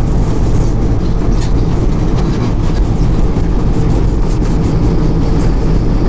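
Combine harvester cutting and threshing grain, heard from inside the cab: the engine and threshing machinery run with a steady, loud drone.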